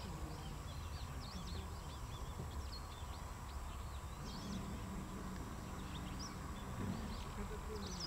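Many short, high chirps from birds, scattered through, over a steady low background rumble.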